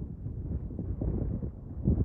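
Wind buffeting the microphone: a low, gusty rumble that rises and falls unevenly, swelling loudest near the end.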